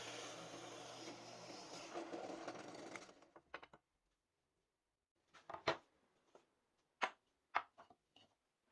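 A small power tool runs steadily with a whir, then winds down and stops about three seconds in. It is followed by a handful of sharp knocks and clicks of wooden pieces being handled and set down.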